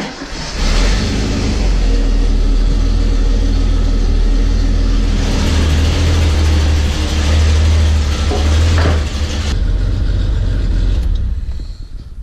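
Datsun 280Z's L28 fuel-injected inline-six starting within the first second, then running loudly and steadily as it warms toward operating temperature. The sound thins out after about nine seconds and falls away near the end.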